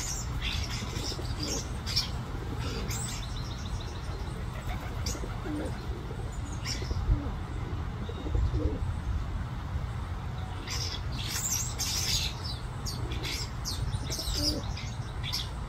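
Dark-eyed junco fledgling chirping: short, high chirps, scattered and thickest about eleven to twelve seconds in, over a steady low rumble.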